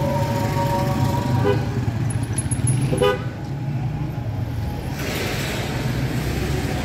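Road traffic: a vehicle engine running steadily close by, with horns tooting, the sharpest a short toot about three seconds in.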